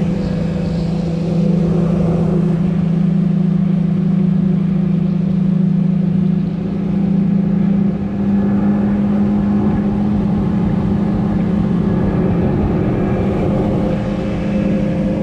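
Boat's outboard motor running steadily at speed, with wind and water noise; its pitch shifts up slightly with a brief dip in level about eight seconds in.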